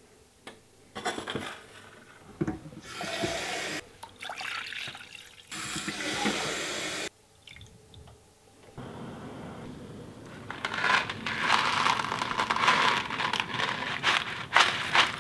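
Water poured into a stainless steel saucepan in several separate pours. From about ten seconds in comes a louder rushing with many sharp rattling clicks as dry macaroni is tipped into the boiling water.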